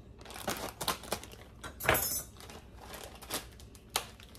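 Container of grated Parmesan cheese being handled and shaken over a bowl of pasta salad: a few sharp plastic clicks and knocks, the loudest about two seconds in.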